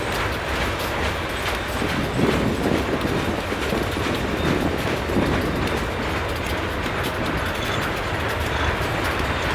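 Steel coil cars of a freight train rolling past, their wheels clicking steadily over rail joints over a continuous rumble.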